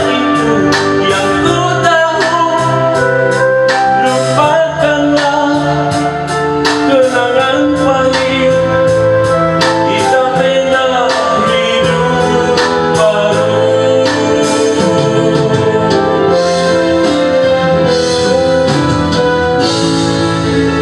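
Karaoke: a pop song's backing track with keyboard and a steady beat, and a man singing along into a microphone.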